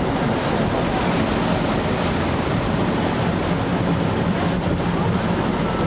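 Steady rush of wind buffeting the microphone over open sea water, with a low hum beneath.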